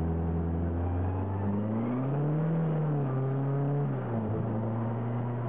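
Car engine heard from inside the cabin under way: the engine note climbs about a second and a half in, holds, then drops sharply about four seconds in before settling steady again.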